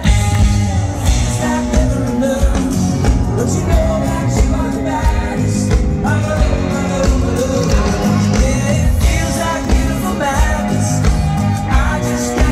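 Live pop-rock band music with a steady beat and heavy bass, a singing voice carried over it.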